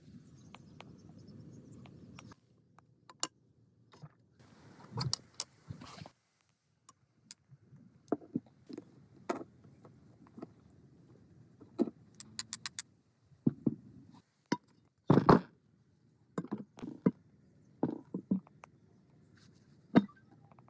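Metal parts and hand tools being handled: a string of clinks, taps and clanks, some ringing briefly, with the loudest knock about three-quarters of the way through.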